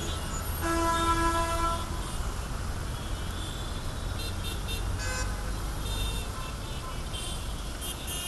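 Jammed city traffic: a steady low rumble of idling and crawling vehicles. A car horn sounds for about a second near the start, and several short, higher-pitched horn toots come from other vehicles later on.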